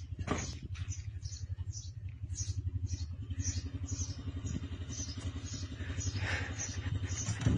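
A running engine, a steady low hum with fast even pulsing, with a regular high ticking over it about three times a second. A sharp clatter comes about a third of a second in and another near the end.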